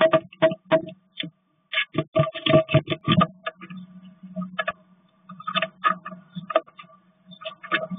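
A great tit moving about inside a wooden nest box: irregular clusters of sharp knocks, taps and scratches as its feet and bill hit the wood, with wing flutters. A steady low hum runs underneath.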